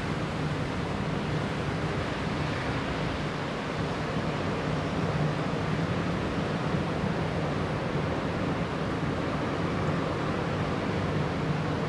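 Typhoon wind, a steady even rush of storm noise, with a faint low hum beneath it.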